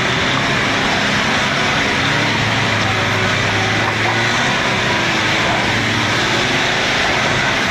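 Vehicle engine running steadily under load while towing through mud. A low hum wavers a little in pitch under an even rushing noise.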